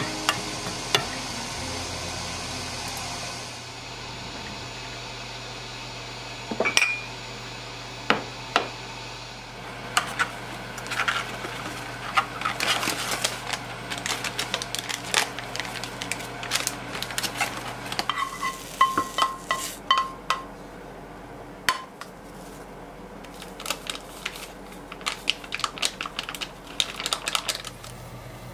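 Kitchen work sounds: sliced mushrooms sizzle in a small frying pan for the first few seconds, then comes a long run of short clinks, taps and knocks of dishes, utensils and pans being handled.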